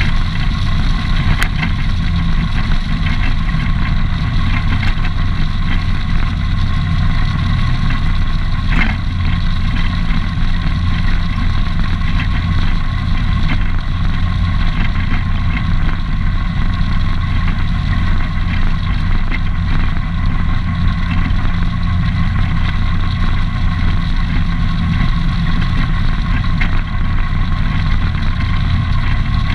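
ATV engine running steadily at cruising speed while riding along a gravel road.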